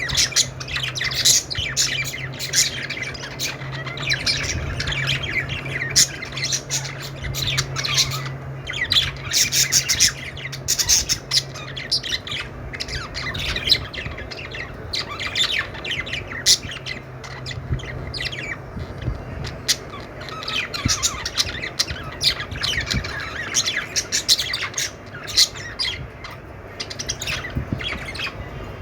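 A group of budgies chirping and squawking in dense, overlapping calls throughout, with a steady low hum underneath for roughly the first twelve seconds.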